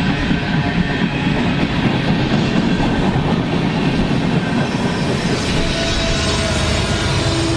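Freight train passing close by: the clatter and rumble of boxcar, flatcar and tank car wheels rolling over the rails. A diesel locomotive's steady engine hum comes in near the end.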